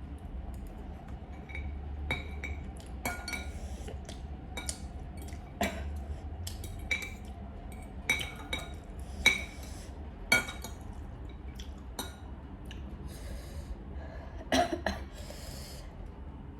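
Eating utensils clinking and tapping against dishes during a meal: about a dozen sharp, ringing clinks at irregular intervals, the loudest a little past the middle, with two brief hissy scrapes near the end.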